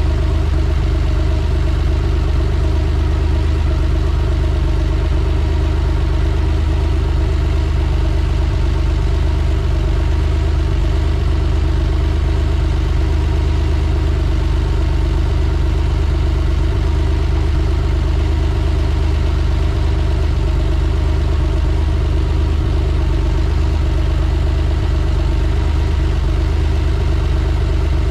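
Porsche 911SC's air-cooled 3.0-litre flat-six idling steadily, as it runs while the dry-sump oil level is read on the dipstick.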